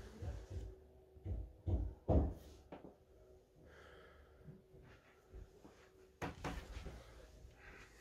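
A few irregular soft low thumps, the loudest about two seconds in and another near the end, over a faint steady hum: footsteps and handling knocks from a hand-held camera being walked through rooms.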